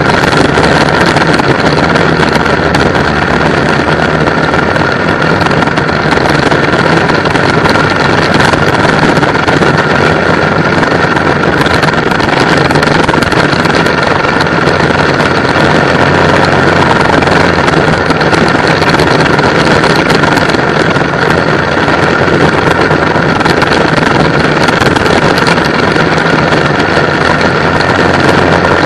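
Racing go-kart engine running hard and loud at a steady pitch, heard from onboard the kart during a race.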